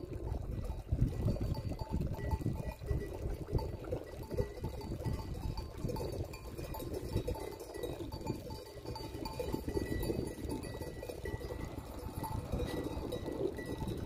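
Goat bells clinking and ringing irregularly from an approaching herd, over the steady noise of water running into a trough.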